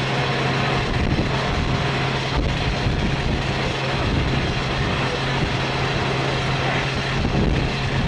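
Airport ramp machinery running steadily: a constant low hum under an even rushing noise.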